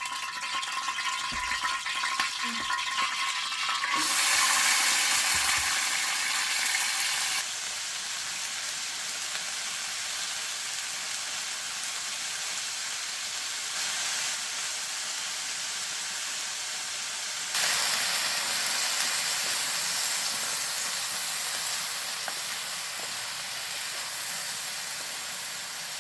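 Food sizzling and frying in hot oil in a pan, a dense steady crackling hiss. It suddenly gets louder about four seconds in, eases off a few seconds later, and flares up again past the middle.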